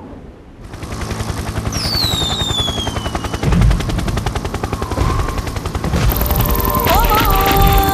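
War-footage battle sound: a fast, dense rattle of automatic gunfire with a military helicopter. Descending whistles come about two seconds in and a heavy blast about a second later. A steady synthesizer note of the song's intro comes in near the end.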